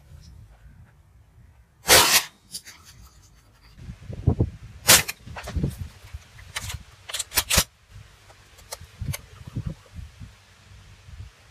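A loud sharp crack about two seconds in, then a run of further sharp cracks and clicks in the middle, with low rustling and handling noise between them.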